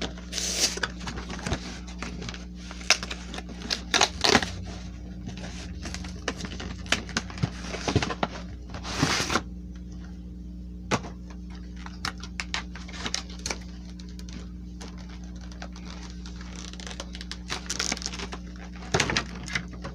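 Irregular clicks, taps and crinkling of a cardboard trading-card box and its packaging being handled and opened, with a few longer rustles and tears. A steady low hum runs underneath.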